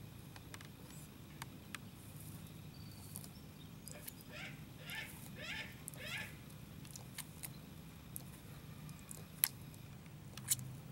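Sulcata tortoise biting and chewing cherry tomatoes: scattered soft clicks and crunches from its beak, with two sharp snaps in the last second and a half as it bites into a tomato. Around the middle there is a short run of about four brief chirp-like sounds.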